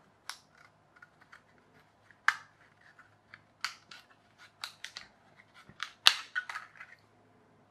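A 3D-printed plastic part being pried by hand off its printed base layer: a run of sharp plastic cracks and clicks, with the loudest snaps about two seconds in and about six seconds in as it breaks free.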